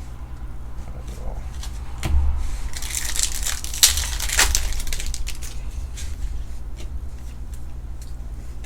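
Trading-card pack wrappers being torn open and crinkled, with cards handled, in scattered rustles and clicks that are busiest from about two to five seconds in. A steady low hum runs underneath.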